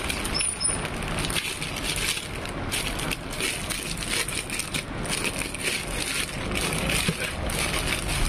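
A clear plastic bag crinkling and rustling in a quick run of small crackles as hands work it off a mixer grinder's motor base.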